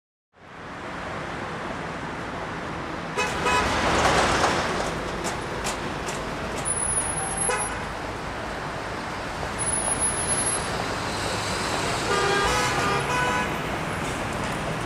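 City street traffic with a steady run of vehicle noise, and car horns sounding briefly several times.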